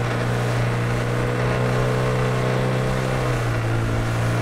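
Hidea 30 hp outboard motor running steadily at cruising speed, its even drone over a rush of wind and water from the moving boat.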